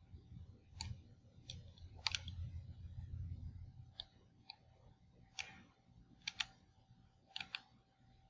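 Faint, sharp clicks at irregular intervals, several of them in quick pairs, over a low rumble during the first few seconds and a faint steady hum.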